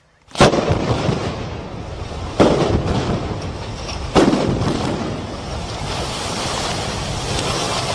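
Controlled demolition implosion of high-rise towers: three sharp blasts about two seconds apart, one per tower, each followed by the long rumble of collapsing concrete.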